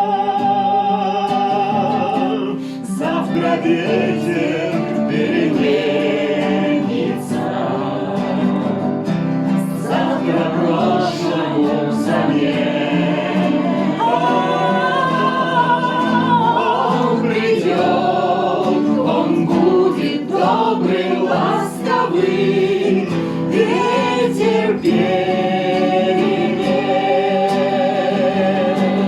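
A group of voices singing a song together, with acoustic guitar accompaniment.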